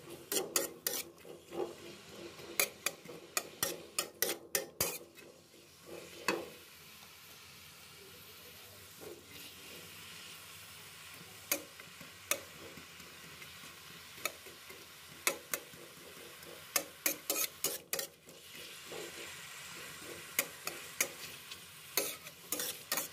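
Metal spoon scraping and tapping against a wok as sliced onions are stir-fried in a little oil until they wilt, over a soft steady sizzle. The scrapes come in quick runs, with a stretch of sizzling alone about a third of the way in.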